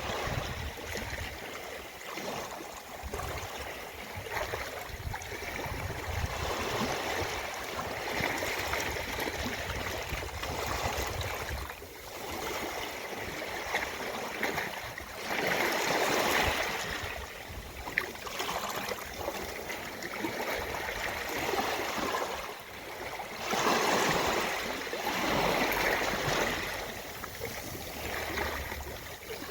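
Ocean waves washing onto a beach: a steady rush of surf, swelling louder about halfway through and again near the end.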